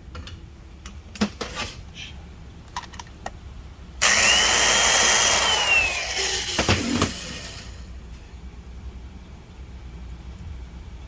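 A few light clicks and knocks, then a high-speed power tool runs for about three and a half seconds with a loud hiss and a whine that holds steady, then falls as it spins down.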